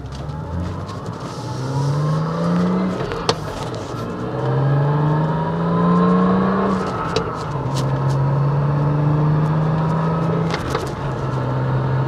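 BMW M235i's turbocharged N55 inline-six heard from inside the cabin under acceleration: the engine note rises, drops back at a gear change, rises again, then settles into a steady drone.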